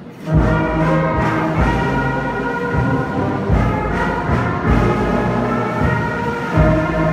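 Brass band of trombones, euphoniums and tubas starts playing with a sudden loud full entry. It holds sustained chords with repeated heavy low accents.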